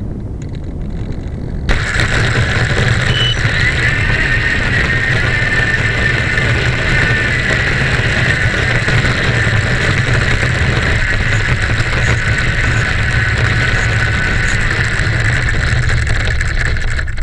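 RC model airplane's motor and propeller throttled up about two seconds in, then running steadily at power with a low drone and a steady high whine while the plane rolls across the dirt. Heard from a camera mounted on the plane, close to the motor.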